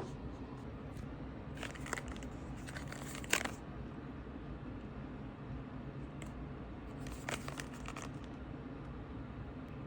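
Brief rustling and crinkling handling noises in three short clusters, the loudest about a third of the way in, over a steady low hum.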